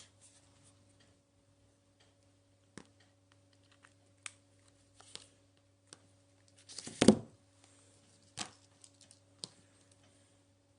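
Handling noise: scattered light clicks and taps of small plastic objects being handled, with one louder thump about seven seconds in, over a faint steady electrical hum.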